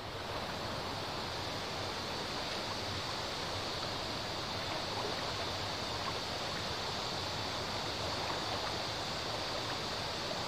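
Shallow river water flowing, a steady rushing hiss with no break.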